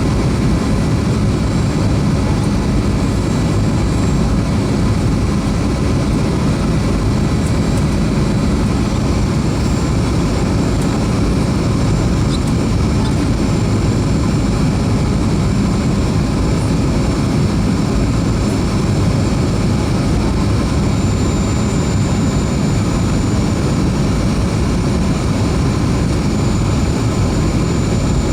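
Steady cabin noise of a Boeing 737-300 with its CFM56-3 turbofan engines running: a loud, even rumble of engine and airflow with a few thin, steady whine tones above it.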